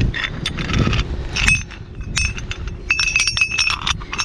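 Metal boat anchor and its fittings being handled: a run of sharp metallic clinks and rattles, some ringing briefly, thickest in the second half.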